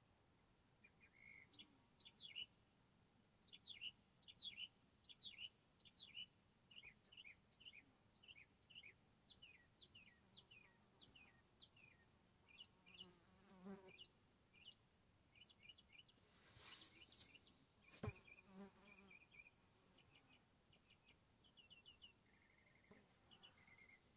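Faint bird chirps: a long run of short, downward-slurred chirps at about two a second, then scattered higher chirps and twitters. A single sharp click about 18 seconds in.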